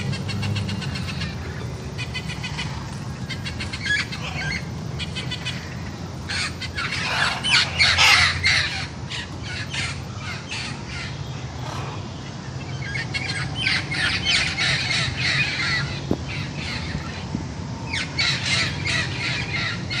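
Red-and-green macaw squawking: harsh, raspy calls in repeated bouts, loudest about eight seconds in, over a steady low hum.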